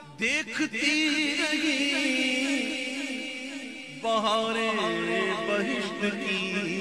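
Male naat reciter singing into a microphone, drawing out long ornamented notes with no clear words; a new, higher phrase begins about four seconds in.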